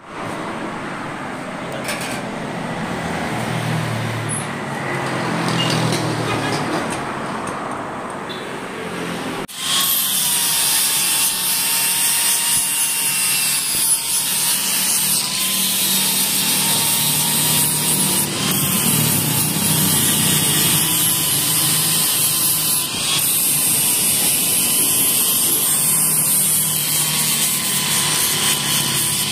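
A power tool working metal runs steadily with a high whine over a dense hiss. In the first third a lower, uneven mechanical sound plays before it starts abruptly.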